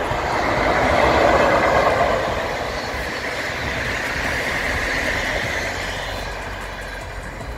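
A passenger train hauled by a Ganz MÁVAG VM-14-19 (MÁV class 432) electric locomotive passing close by: the rushing noise of wheels on rails, loudest about a second in as the locomotive goes by, then steadier as the coaches roll past, fading toward the end.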